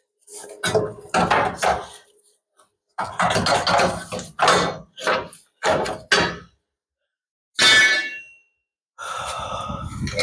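Irregular metal clunks and knocks from truck front-suspension parts and tools being worked and handled, with one short ringing clang of metal about three-quarters of the way through.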